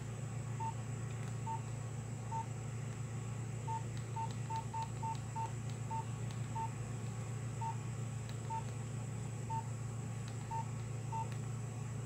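Nokia 1680 classic keypad tones: short single-pitch beeps, one per keypress, about sixteen at irregular intervals with a quick run of them around the middle, as the phone's menus are stepped through. A low steady hum lies under them.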